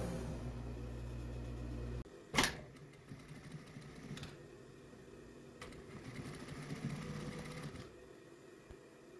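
An industrial overlock machine's motor runs with a steady hum for about two seconds and cuts off abruptly. A sharp click follows, then an industrial single-needle lockstitch machine stitches knit fabric more quietly.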